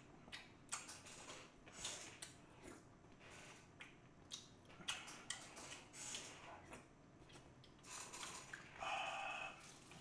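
Close-up eating sounds: a plastic spoon clicking and scraping in a plastic tub of steamed egg, with many small mouth clicks and smacks from chewing. A brief squeak comes about nine seconds in.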